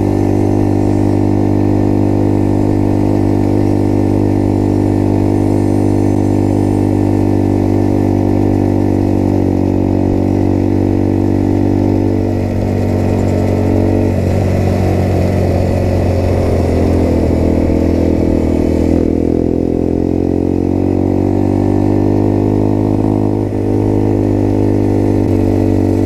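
Small motorcycle engine running at a steady cruising pitch, dipping and then rising again between about halfway and three quarters of the way through as the throttle is eased off and reopened.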